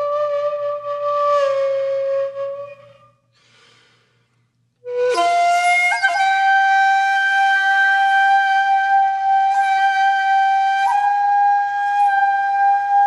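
Background music of long held notes. It fades almost to nothing about three seconds in, then a new note comes in about five seconds in and is held for the rest of the time.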